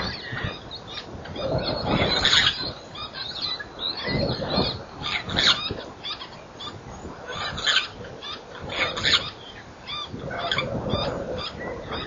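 Several wild birds calling from a shrub: loud, harsh calls repeat every second or two over steady chatter.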